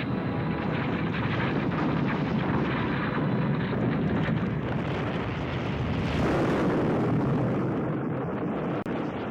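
Film soundtrack sound effect of a continuous rumbling, crashing noise, like rock and debris tumbling into a pit. It swells a little about six seconds in.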